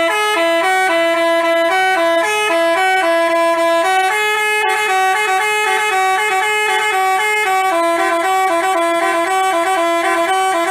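Basuri telolet multi-tone bus horn playing a fast melody, two voices an octave apart stepping from note to note several times a second, loud and unbroken.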